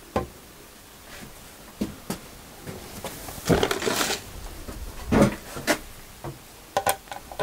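Hand tools clinking and clattering as someone rummages through them for the correct size screwdriver: scattered clicks, a louder burst of clatter about three and a half seconds in, another around five seconds, then a few more clicks near the end.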